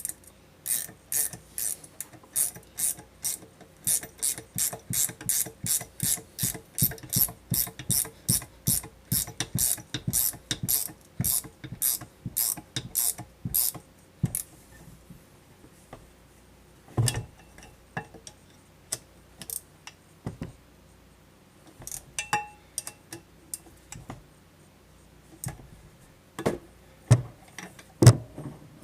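Hand ratchet wrench clicking in quick, even strokes, about three a second, during work on an ATV axle assembly. After about 14 s it gives way to scattered clicks and a few heavier metal knocks.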